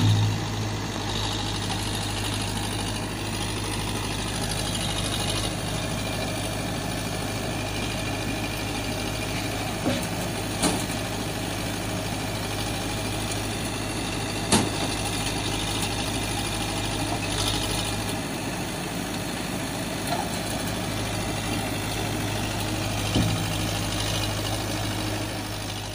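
An engine idling steadily, an even low drone that holds the same pitch throughout, with a few short clicks scattered through it.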